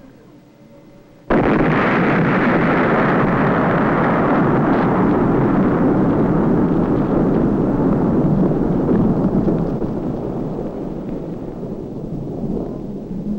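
Blast wave of a 1957 Plumbbob nuclear test shot reaching the microphone about a second in, well after the flash: a sudden loud bang that runs straight into a long, heavy rumble, which slowly eases off over the last few seconds.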